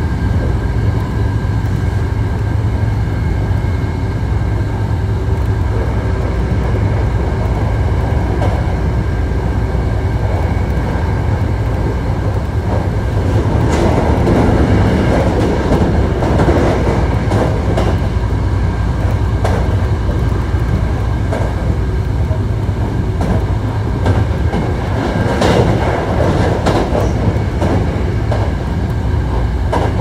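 Running noise of a Hankyu 1300 series electric train with Toyo IGBT-VVVF traction equipment, heard on board: a steady rumble of wheels on rail under a few constant whining tones, with no rise or fall in pitch. The rail noise gets louder and rougher, with clicks, about halfway through and again near the end.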